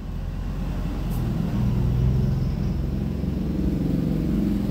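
A motor vehicle's engine running close by, growing louder over the first two seconds and then holding steady at a low pitch.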